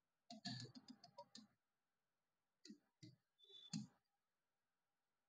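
Faint taps of a fingertip typing on a large touchscreen's on-screen keyboard: a quick run of taps in the first second and a half, then a few more after a short pause.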